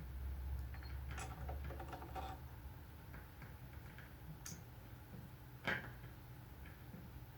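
Faint clicking and ticking over a low hum, with a cluster of small clicks about a second in and one sharper click near the end.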